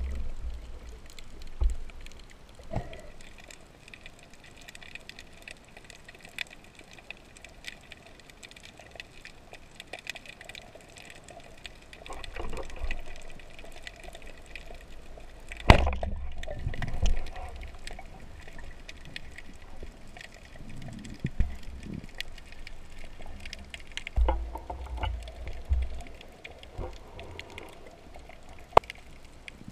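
Underwater sound picked up by a submerged camera: muffled water movement and gurgling, with scattered dull knocks and one sharp, loud click-thump about sixteen seconds in.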